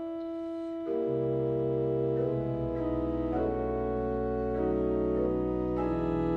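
Pipe organ playing sustained chords, with deep pedal bass notes coming in and the sound getting louder about a second in.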